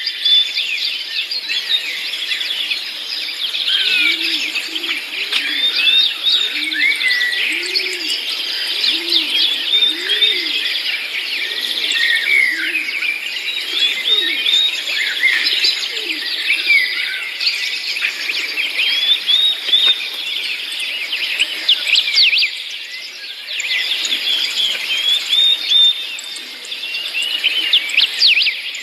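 Many small birds chirping and twittering continuously, their quick high calls overlapping. A run of lower, rounder calls comes in between about 4 and 11 seconds in.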